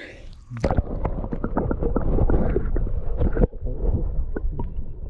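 Action camera's microphone plunged into river water: a muffled underwater rumble and gurgle that starts about half a second in, laced with many sharp clicks and knocks. It dips briefly past the middle, then carries on a little quieter.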